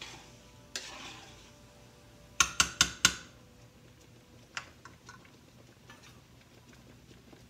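A spoon stirring rice and vegetables in a pan, then knocked four times in quick succession against the pan, each knock ringing briefly. One lighter knock follows a little later.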